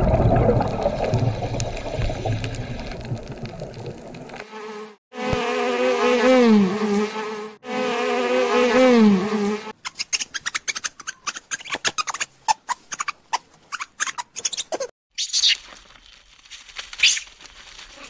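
A run of different animal sounds, one after another. First a loud rushing noise fades away. Then come two drawn-out calls whose pitch wavers, rapid chattering clicks and chirps, and a few high calls near the end.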